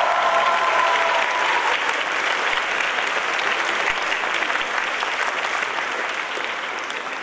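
A crowd applauding: dense clapping that slowly dies away. A held tone fades out in the first second or two.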